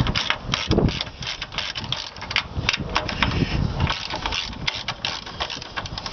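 Hand ratchet with a 13 mm socket clicking in quick irregular runs as its pawl ratchets back between turns, loosening the strut tower bar bolts.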